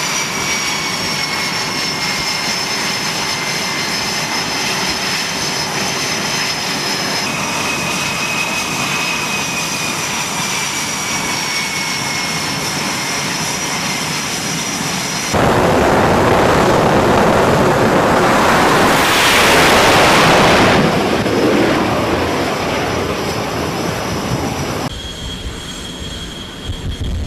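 F/A-18 Super Hornet twin jet engines whining steadily on the carrier catapult, with high turbine tones that slowly fall. About fifteen seconds in, the sound jumps suddenly to a loud jet roar as the launch goes, swelling for a few seconds and then fading away.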